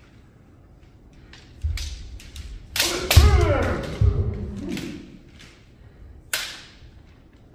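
Kendo sparring on a wooden dojo floor: bamboo shinai strikes cracking sharply, stamping footwork thudding heavily several times, and a falling kiai shout about three seconds in. A single loud crack comes near the end.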